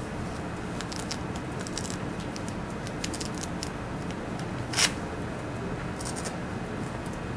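Room tone: a steady low hum with scattered faint clicks and rustles, and one short, louder hissing noise a little under five seconds in.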